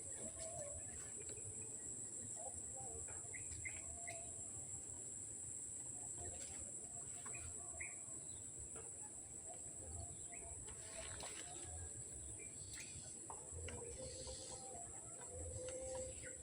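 Wetland ambience: a steady high-pitched insect drone, with scattered short bird chirps over it.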